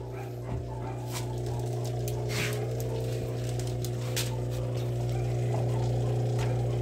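Consul 7.5 kg top-loading washing machine running on its side with only the agitator turning: a steady motor hum with a few faint clicks. The basket stays still, a fault the technician traces to the actuator not engaging.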